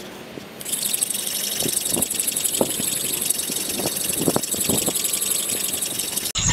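Handheld sharpening stone rubbed quickly over an axe blade's edge: a steady gritty scraping that starts about a second in and cuts off abruptly just before the end. The stone is honing out a small nick in the edge.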